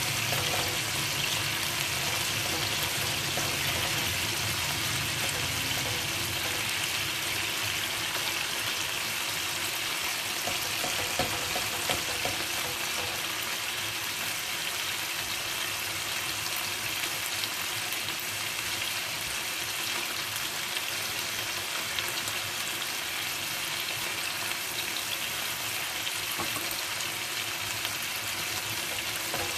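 Sauce-glazed chicken pieces sizzling steadily in a frying pan, with a couple of louder crackles about eleven seconds in.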